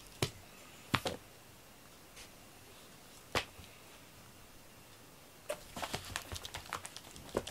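A cat playing with a pom-pom wand toy on a foam mat floor: a few separate sharp taps, then a quick flurry of scrabbling paw taps near the end as it jumps and dashes about.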